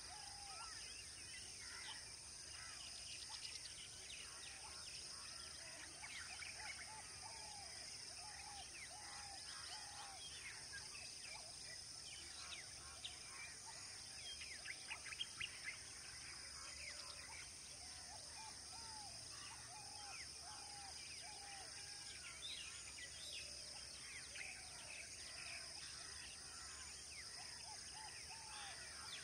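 Wild birds calling and chirping: runs of short arched notes repeated about twice a second, with many higher chirps over a steady high hiss. About halfway through comes a quick burst of louder chirps.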